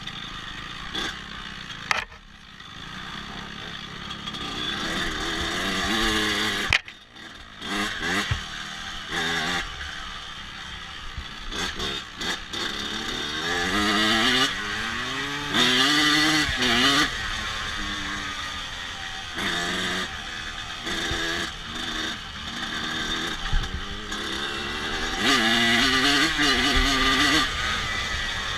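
Honda CRF250F single-cylinder four-stroke dirt bike engine running, its pitch climbing and falling again and again as it is revved, with a brief drop in sound about seven seconds in.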